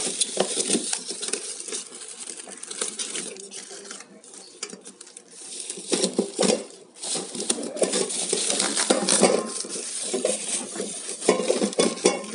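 Metal inner pot of a new Eureka rice cooker being handled: repeated clinks, knocks and scrapes of metal, with rustling of its plastic wrapping, busiest in the second half.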